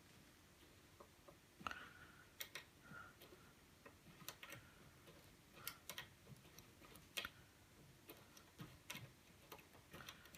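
Faint, irregular small clicks of a SIP22 turbodecoder's wheels being tensioned and turned in a car door lock, repeatedly setting the lock's sliding pins before it opens.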